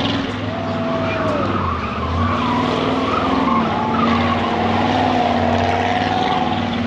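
Monster truck engine running hard as the truck drives around a paved lot, its pitch rising and falling with the throttle. A higher wavering whine runs over the engine note.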